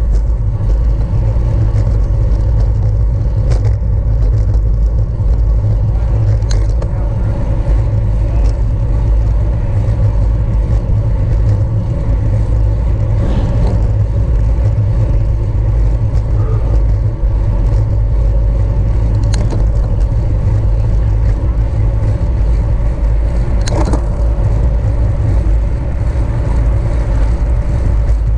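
Bicycle ridden at racing speed, heard from a bike-mounted camera: a steady loud wind rumble on the microphone, with tyre and drivetrain hum and a few faint clicks.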